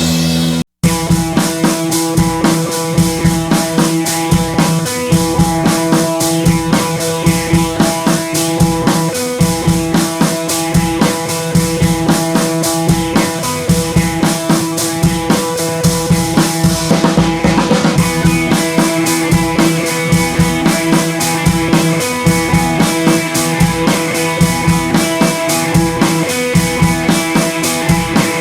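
Background music: a rock track with a steady drum-kit beat over held instrument tones, cutting out briefly about half a second in.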